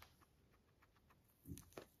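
Guinea pig biting and chewing a sprig of fresh greens: faint crisp clicks, then two louder crunches about one and a half seconds in.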